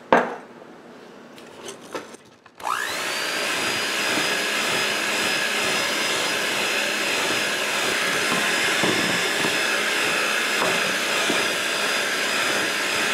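A few light knocks, then about two and a half seconds in a handheld electric mixer switches on, its whine rising as the motor spins up, then running steadily while the beaters mix an egg yolk into creamed butter and sugar.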